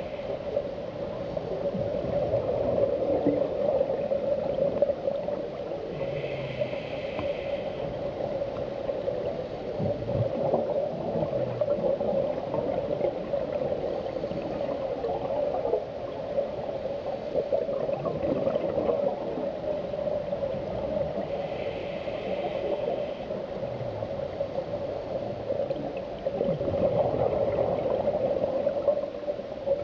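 Underwater sound through a compact camera's underwater housing: a steady hum with the gurgle of a scuba diver's regulator breathing. There is a short hiss about six seconds in and another about two-thirds of the way through, and bubbly gurgling near the end.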